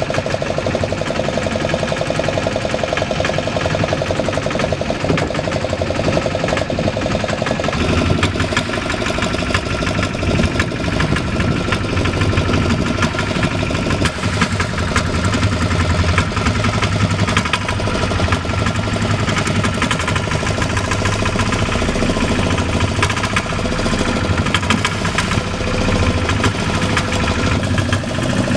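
A fishing boat's engine running steadily under way, a continuous low hum with a fast, even pulse.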